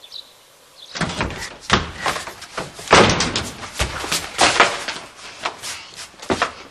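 A quick run of knocks and thumps with rustling, starting about a second in, as a girl bustles about a bedroom and throws her coat and bag onto a desk; the loudest thump comes about three seconds in.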